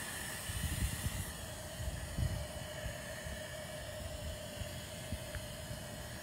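Wind buffeting the microphone outdoors: irregular low rumbles, strongest in the first couple of seconds, over a steady hiss with a faint steady hum.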